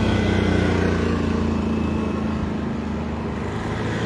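Engines of street traffic running close by, a minibus and a three-wheeled mototaxi among them, making a steady low drone.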